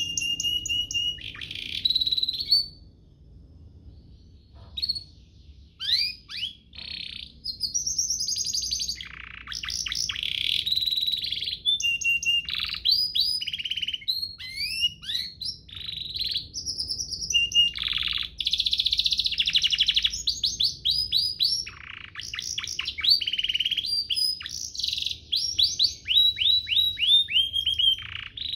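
Domestic canary singing a long, varied song of rolling trills, rapid repeated notes and fast whistled sweeps, pausing briefly about three seconds in before resuming.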